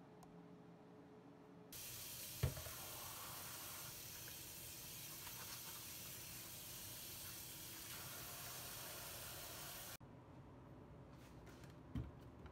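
Kitchen tap running steadily into a stainless steel sink as dishes are rinsed, starting a couple of seconds in and stopping abruptly; a sharp knock sounds just after the water starts, and a softer thump comes near the end.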